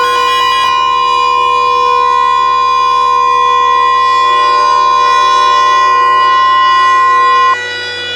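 Emergency Alert System attention signal: a loud, steady electronic alert tone with a constant pitch, cutting off abruptly about seven and a half seconds in. A patterned electronic data buzz ends within the first second.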